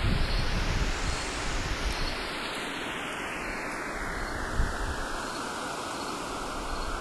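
A steady rushing noise like surf or wind. It brightens over the first second, slowly dulls for several seconds, then brightens again near the end.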